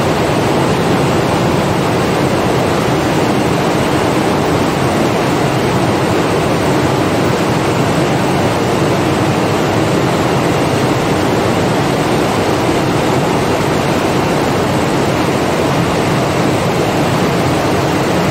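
Many cam- and dobby-shedding water jet looms running together in a weaving hall: a loud, steady mechanical din in which no single loom's beat stands out.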